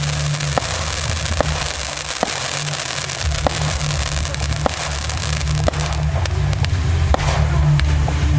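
Fireworks ground fountains hissing steadily as they spray sparks, with sharp cracks about once a second as small stars fire upward, over a low rumble.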